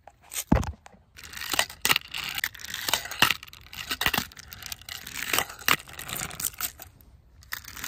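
Tech Deck handboard with metal trucks and rubber wheels rolling on rough ground, a gritty rolling noise broken by many sharp clacks of the board.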